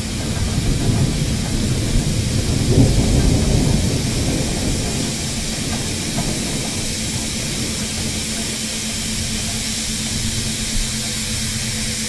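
Aquarium water running: a steady hiss of moving, splashing water with a steady low hum under it, and a louder low rumble through the first few seconds.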